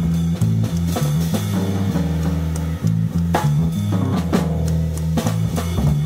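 Electric bass guitar playing a moving line of low notes, with a drum kit accompanying on scattered drum and cymbal strikes.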